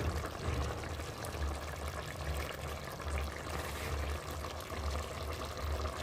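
Squid curry in coconut milk bubbling at a simmer in a metal pot, a steady bubbling with an uneven low rumble underneath.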